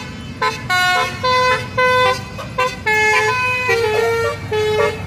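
Indonesian bus telolet horn playing a quick tune of short stepped notes, several horn tones sounding together, with a low engine rumble beneath.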